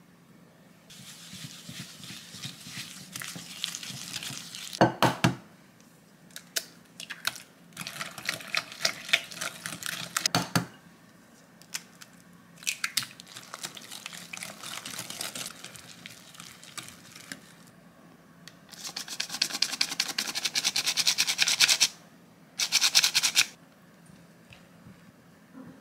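A wire whisk beating butter, sugar and rice syrup into a thick batter in a glass mixing bowl, in several bouts of scraping and rapid ticking against the glass with short pauses between them. The last and fastest bout comes near the end.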